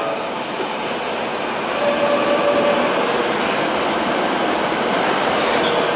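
Kobe Municipal Subway train running: a steady noise of wheels on rail, growing a little louder about two seconds in.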